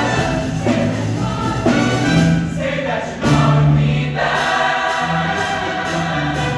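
A show choir singing held chords over instrumental backing.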